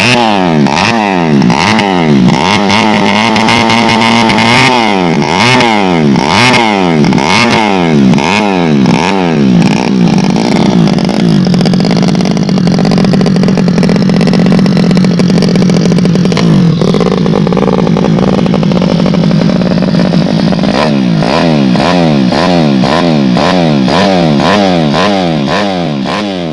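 Tuned Yamaha Jupiter Z 125 single-cylinder four-stroke motorcycle engine being revved on the stand: quick throttle blips, revs rising and falling about twice a second, then held high and steady for around ten seconds, then quick blips again near the end.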